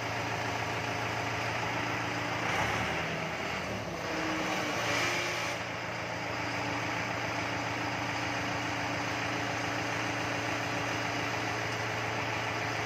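Mahindra 4025 tractor's diesel engine running steadily at idle, its sound swelling and shifting for a few seconds in the middle before settling back.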